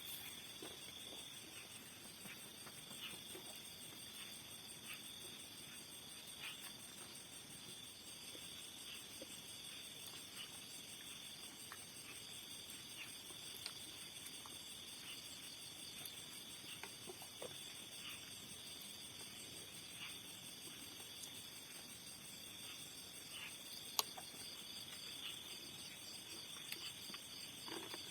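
Insects chirring in a steady high-pitched chorus, with a faster pulsing trill above it. Faint scattered clicks and taps, and one sharper click near the end.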